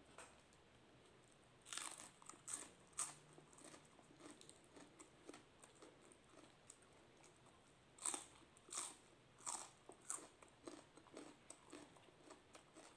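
Crisp crunching of fresh lettuce being bitten and chewed, in two bursts about two and eight seconds in, with lighter crunches between.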